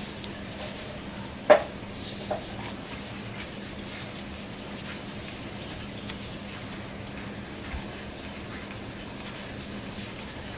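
Cloth wiping steadily over a MacBook Air's aluminium lid. There is a sharp click about a second and a half in and a lighter one shortly after.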